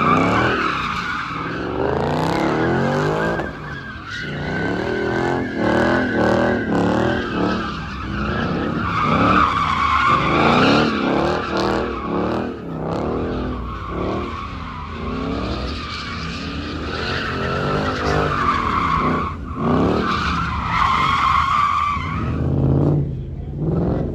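Ford Mustang doing donuts: tyres squealing in repeated long swells while the engine revs up and down over and over.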